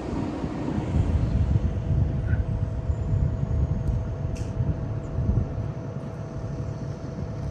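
Heavy construction machine's engine running steadily, a low rumble with a faint steady whine over it and one click about four and a half seconds in.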